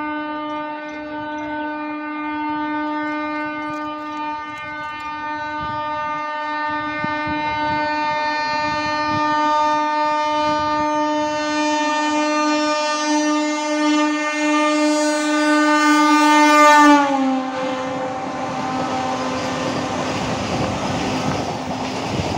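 Vande Bharat Express electric trainset sounding one long, unbroken horn as it approaches at speed, growing louder. About seventeen seconds in, the horn's pitch drops as the front of the train passes, and the rushing noise of the coaches going by takes over.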